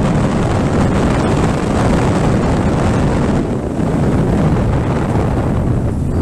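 Motorcycle on the move: a steady, loud rumble of wind buffeting the microphone mixed with engine and road noise.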